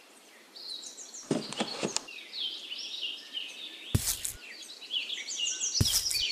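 Birds chirping and twittering continuously, with a few short rustling knocks about one and a half, four and six seconds in as plastic plants are pressed into sand.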